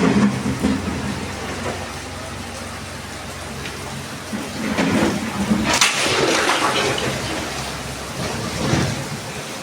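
Steady rushing noise of a swollen, fast-flowing river in flood, swelling louder about five to seven seconds in.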